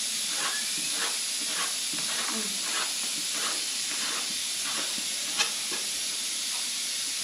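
A knife cutting thin-rolled dough into noodles on a board, in soft, even strokes about two a second, with one sharper click about five seconds in. A steady hiss runs underneath.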